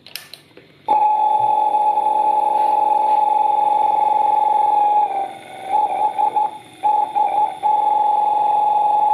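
A small three-piston diaphragm pump running on its DC motor. After a click it starts about a second in with a steady, high whine, which falters and breaks up several times in the middle before steadying again.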